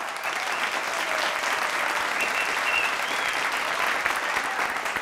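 Studio audience applauding steadily: many hands clapping at once.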